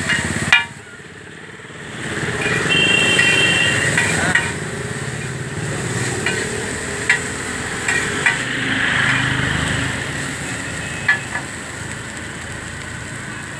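Chowmein noodles frying and being tossed on a large flat iron griddle with two metal spatulas: a steady sizzle with scraping, and a few sharp clinks of spatula on iron.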